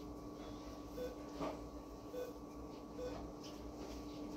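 Short, soft electronic beeps about once a second, typical of a veterinary anesthesia patient monitor sounding with the anesthetised dog's pulse, over a steady equipment hum. A light knock about a second and a half in.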